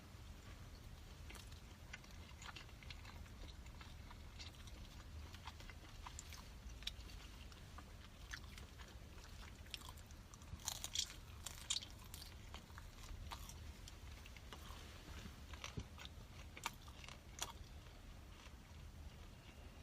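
A person chewing and biting food close to the microphone: soft, scattered wet mouth clicks and small crunches, with a louder cluster of crunchy bites about halfway through. The food is a piece of jiang xiang bing, a sauce-brushed Chinese flatbread.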